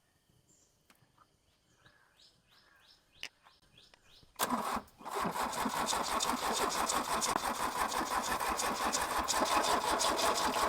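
A Sierra's diesel engine being cranked by its starter motor on 24 V after seven years standing. It starts a little over four seconds in, stops briefly, then turns over steadily with rapid even pulses without catching. It turns freely: the engine is not seized.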